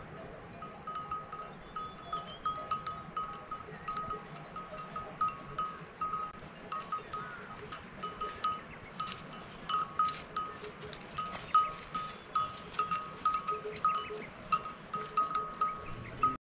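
A metal bell hanging from a grazing animal's neck clinks over and over at one pitch, irregularly, about two or three strokes a second, as the animal moves its head. The clinks grow a little louder in the second half.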